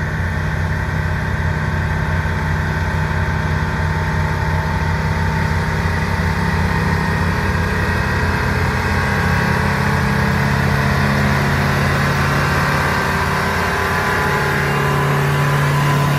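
Oshkosh M1070 heavy-haul tractor's diesel engine running steadily as it pulls a loaded trailer, growing louder as the truck comes up and passes close by.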